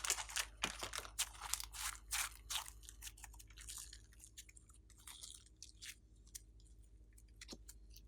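Slime being worked, crackling and popping in quick clicks that are dense and louder for the first few seconds, then thin out to scattered faint pops.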